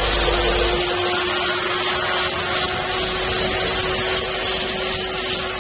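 Bottle cap making machine running: a steady mechanical noise with a constant hum, and metal caps rattling as they churn in the rotating feed hopper.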